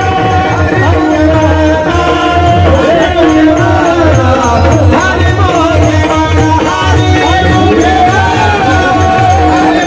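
Marathi devotional kirtan music: a voice singing a gliding, ornamented alaap over a held accompanying tone and percussion keeping a steady beat.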